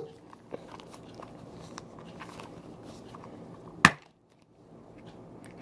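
Faint ticking and rustling of small toy packaging being handled, with one sharp click about four seconds in.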